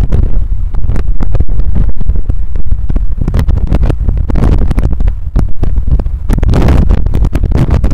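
Slowed-down, looped road-vehicle noise: a loud, low, throbbing rumble broken by rapid irregular clicks and stutters.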